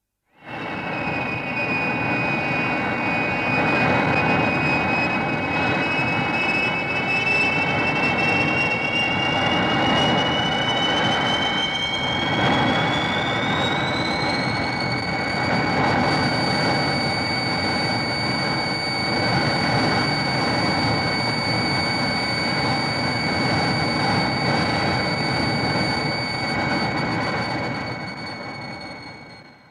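Fire Rodan monster sound effect: a steady jet-engine-like roar with a high whine that climbs in pitch about halfway through, then holds, fading out at the end.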